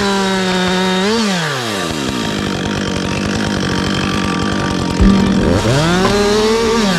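Chainsaw engine held at high revs, dropping off about a second in, then revving up again around five seconds and falling back near the end.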